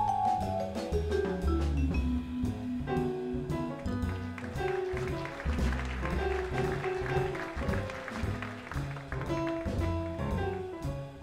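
Live jazz group playing a blues on vibraphone, piano, double bass and drum kit. A line of notes descends over the first two seconds and the vibraphone then drops out, leaving piano, bass and drums, with the cymbals swelling in the middle.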